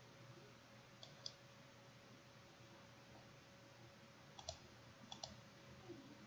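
Faint computer mouse clicks, about six in quick pairs, one pair about a second in and two more between four and five and a half seconds in, over near-silent room tone with a faint steady hum.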